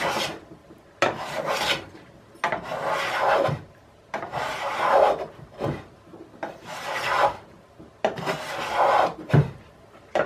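Stanley No. 120 block plane with a freshly sharpened iron taking shavings off the edge of a board: about six strokes, each a rasping hiss about a second long, several of them starting with a light knock as the plane lands on the wood.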